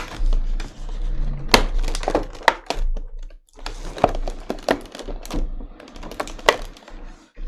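Irregular clicks, taps and knocks of hard plastic packaging being handled and worked open by hand.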